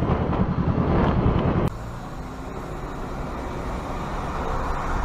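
A motorcycle engine running, heard as a fast pulsing rumble from the rider's camera. About 1.7 s in it cuts abruptly to quieter, steady engine and road noise from a car dashcam.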